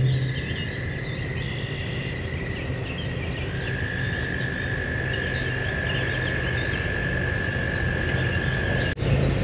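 Open-air ambience with a steady hiss and a thin, steady high-pitched whine that steps down slightly in pitch about three and a half seconds in; the sound drops out briefly near the end.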